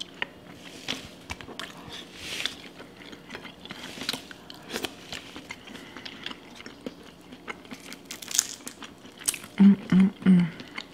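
Close-up eating-show sounds: fingers rummaging through a saucy seafood boil of crab legs, shrimp, corn and potatoes, giving scattered wet clicks, crunches and mouth sounds. Near the end come three short hummed voice sounds.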